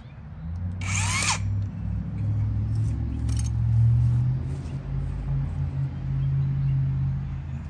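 Power tool running steadily with a low hum while working on a tree stump, with a brief high-pitched burst about a second in.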